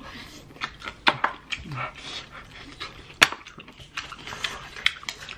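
Close-up eating sounds from two people on ghost pepper chicken wings: chewing and lip smacks with scattered sharp clicks, two louder ones about a second and about three seconds in, over hissing breaths and sniffs from the burn of the ghost pepper sauce.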